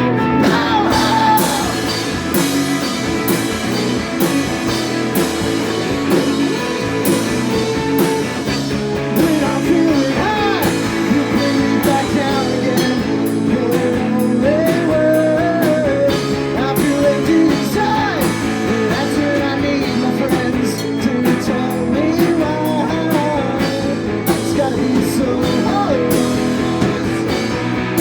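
A rock band playing live, with electric guitar, bass and drums keeping a steady beat and a singing voice gliding over the top.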